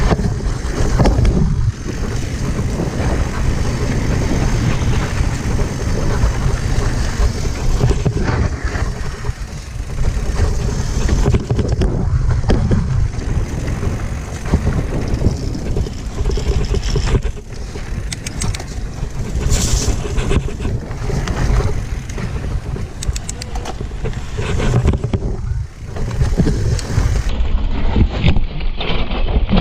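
Wind rushing over the microphone as a mountain bike descends a rough downhill trail, with the bike rattling and clattering over roots and rocks throughout.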